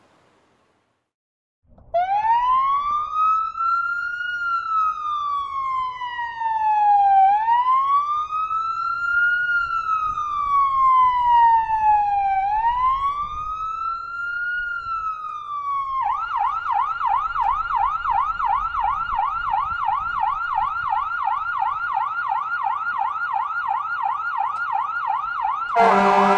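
Emergency vehicle's electronic siren. After a second or two of silence it starts with a slow wail that rises and falls about every five seconds. Past the middle it switches to a fast yelp, and near the end it gives a short, loudest horn-like blast.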